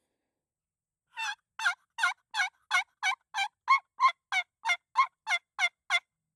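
Turkey box call run in a string of about fourteen yelps, about three a second, each a sharp squawking note, calling to a gobbling tom.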